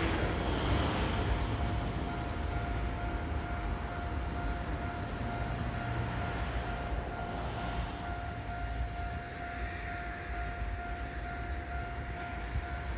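Outdoor ambience with no train passing: a low, uneven rumble of wind on the microphone, and a faint steady tone that comes in about a second in.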